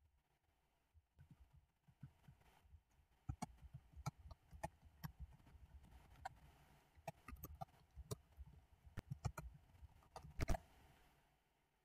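Faint, irregular clicks and soft knocks, several a second at times, starting about a second in and loudest just before the end.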